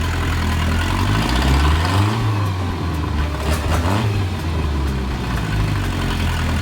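Mercruiser 3.0 L four-cylinder marine engine running, with its pitch rising and falling as it is blipped around two and four seconds in.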